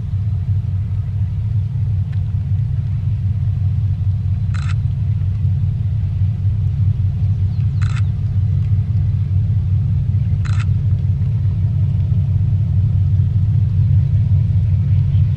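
GE AC44i and EMD SD70ACe diesel-electric locomotives working hard up a grade with a heavy iron-ore train: a deep, steady engine rumble that grows slowly louder as they approach.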